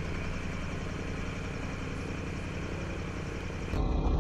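An engine running steadily at idle, a low drone with a throb. Near the end the sound changes abruptly to a louder, duller engine drone.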